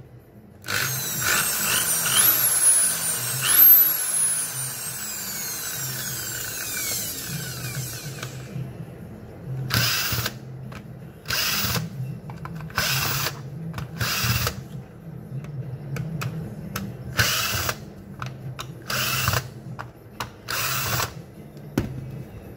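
A Makita 6413 corded electric drill is run up twice to a high whine and then coasts down slowly over several seconds. After that a cordless drill-driver runs in about seven short bursts, backing out the screws of the Makita's housing.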